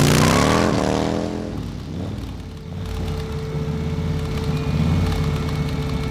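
A motorcycle engine revs up once over the first second or so and falls away, then runs at a steady low idle.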